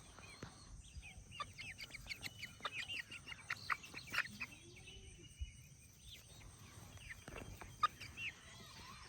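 A flock of chickens calling: a quick run of short, high chirps and peeps from about a second and a half in, then a few scattered calls toward the end.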